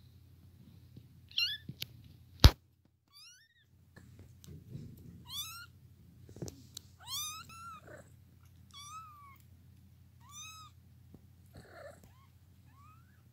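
Young kittens mewing repeatedly: about eight short, high-pitched mews that rise and fall in pitch. Under them runs a low, steady purr. A single sharp click about two and a half seconds in is the loudest sound.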